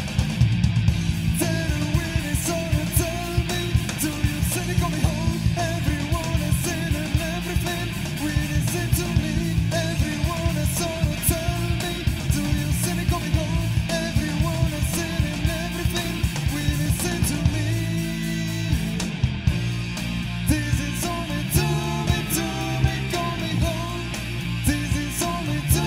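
Rock song with guitar, a steady drum beat and a singing voice.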